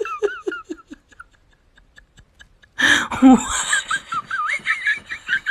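A person laughing in quick, rhythmic bursts that fade out after about a second; after a short lull, louder, high-pitched squealing laughter breaks out about three seconds in.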